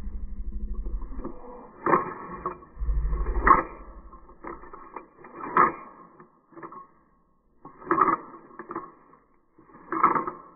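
Glock 43X pistol's slide being racked by hand, clacking sharply about five times over several seconds. Low rumbling noise runs through the first couple of seconds and comes again about three seconds in.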